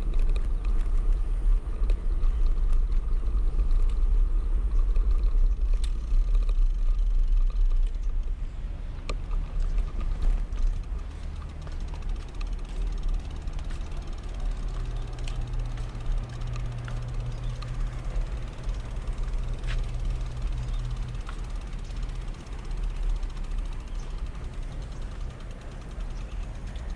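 Wind rumbling on the microphone of a camera on a moving bicycle, with road noise. The rumble is loudest in the first third. A steady low hum joins a little past halfway and lasts several seconds.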